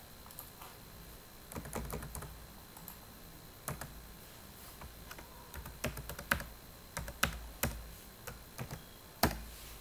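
Computer keyboard being typed on, keys clicking in short irregular runs with pauses between them.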